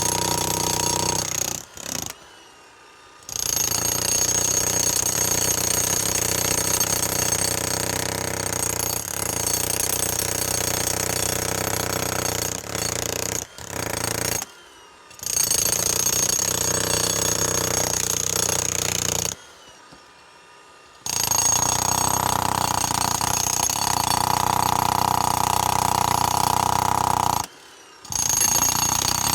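Jackhammer breaking up a concrete slab, hammering in several long runs broken by short pauses.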